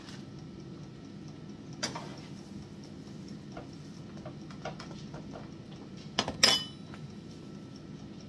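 A spatula clicks and knocks against a frying pan as it works eggy bread on the gas hob. There are a few light taps, then a louder double clang a little past six seconds. A steady low hum runs underneath.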